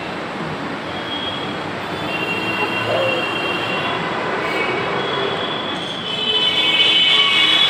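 Delhi Metro train running close by: a steady rolling rumble with high thin whining tones, which grow louder about six seconds in.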